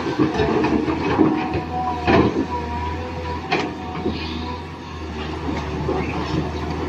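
Small electric motors and gears of a radio-controlled toy excavator running, with a low hum and irregular clacks, the sharpest about two seconds in and again a second and a half later.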